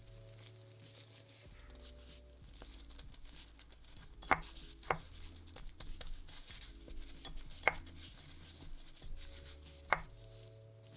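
Bread dough being rolled and pressed in cornmeal in a glass bowl by a plastic-gloved hand, with four sharp taps against the bowl spread over the middle and end. Soft background music with sustained notes plays underneath.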